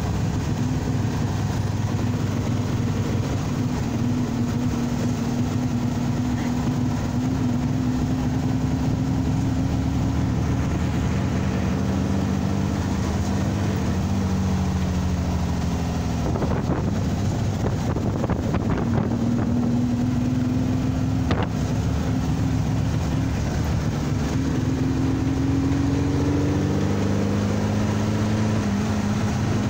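Dune buggy engine running while driving, its pitch rising and falling with speed and gear changes, over road and wind noise. A brief knock comes about two-thirds of the way through.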